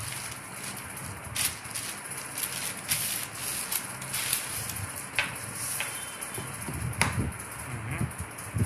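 Plastic courier mailer bag crinkling and rustling as it is handled and pulled off a boxed phone, with a few sharp clicks later on and a low knock near the end.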